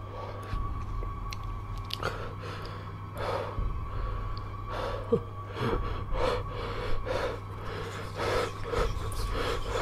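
Quick, ragged gasping breaths, about two a second, starting about two seconds in, over a steady low hum and a faint steady high tone.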